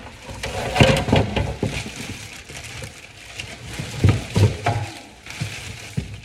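Packaging and parts being handled during an unboxing: irregular knocks, clicks and rustling, busiest about a second in and again about four seconds in.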